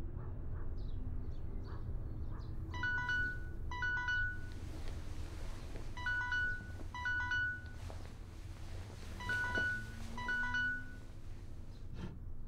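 Mobile phone on a bedside table sounding an electronic alert: two short chimes about a second apart, the pair repeating three times with about three seconds between pairs, over a low steady hum. It is the phone going off while she is asleep in bed, the kind of alert that wakes someone in the morning.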